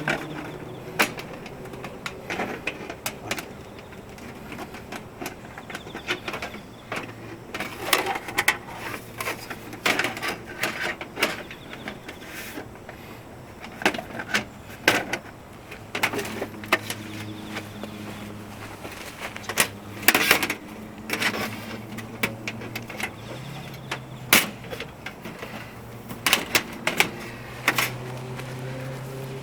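Irregular metallic clinks and knocks from the steel parts of a Uniflame fire grill being handled and set up, some in quick clusters. A low steady hum comes and goes underneath.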